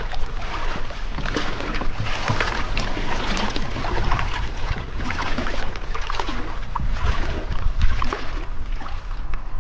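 Shallow water splashing and sloshing against an inflatable boat's hull, with many small crackling splashes over a low rumble.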